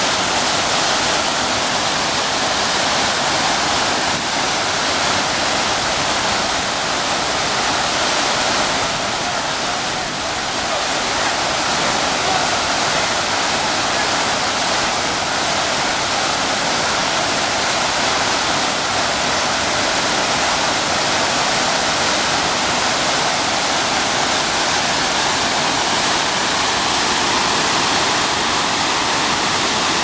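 Steady rushing of white water tumbling over rocks in a fast stream's rapids.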